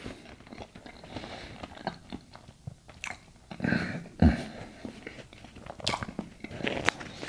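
Close-miked eating sounds: a person biting and chewing, with wet mouth smacks and a few crunchy bites, and one louder knock about four seconds in.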